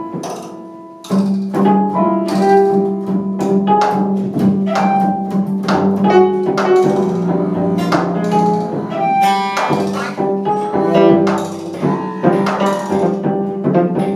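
Live ensemble music: cello and double bass bowing held low notes, with many short, sharp taps from a prepared snare drum played with sticks. It thins out briefly near the start, then comes back in full about a second in.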